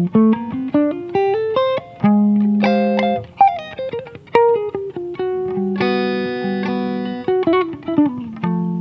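Improvised guitar playing. A quick run of plucked notes climbs in pitch, then chords are held and left to ring, and a falling run of notes comes near the end.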